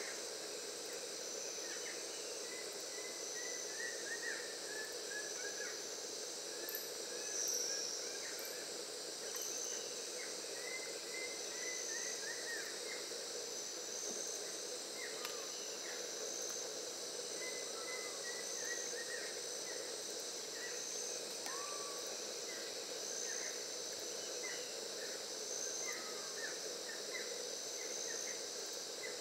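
Steady rainforest insect chorus: a high, even drone with a lower hum beneath it. Scattered short bird chirps and brief trills come and go throughout.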